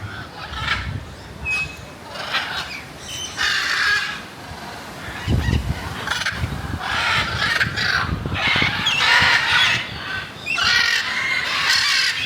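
Birds giving a string of loud, harsh squawking calls, one after another.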